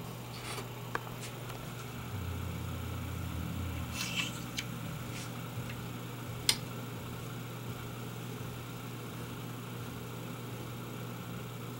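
Steady low hum of room tone, with a deeper hum joining between about two and four seconds in. A few scattered light taps and clicks sound over it, the sharpest about six and a half seconds in.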